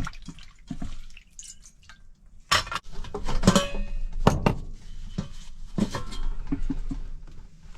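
Kitchenware being handled: dishes, pots and utensils clinking and knocking together in a string of sharp knocks with brief ringing.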